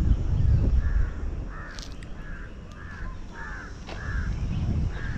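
A crow cawing repeatedly in a run of short calls, about two to three a second, with a brief pause a little past the middle.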